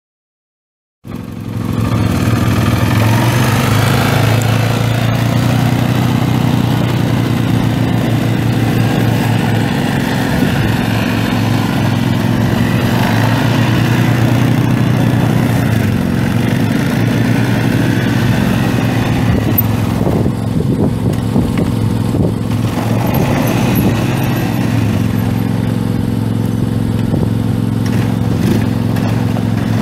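2011 Arctic Cat 700 ATV's single-cylinder gas engine running steadily at an even speed, cutting in suddenly about a second in.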